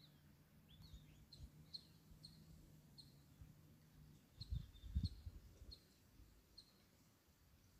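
Faint, irregular high chirps of a small bird, about two a second. About halfway through come two dull low thumps, the loudest sounds.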